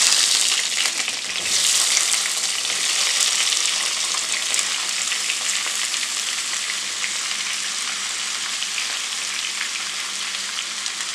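Cut green tomatoes hitting hot coconut oil in a nonstick pan and sizzling. A fresh burst of sizzle comes as more pieces go in about a second and a half in. The sizzle then settles into a steady hiss with small crackles that slowly fades.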